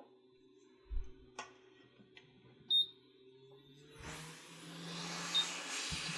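A few light clicks and a short, high electronic beep near the middle, over a faint hum. From about four seconds in, a steady hiss comes up.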